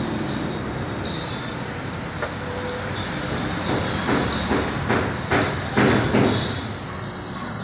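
Steady mechanical background noise, interrupted by a run of about six loud knocks, a little over two a second, about four to six and a half seconds in.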